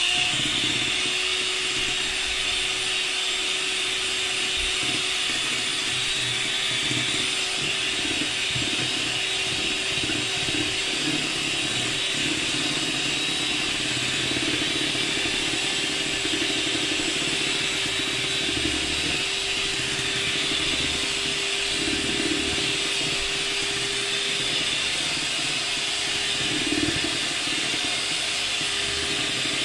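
Electric hand mixer running steadily, its beaters whirring through batter in a glass bowl, with a constant hum that holds one pitch throughout.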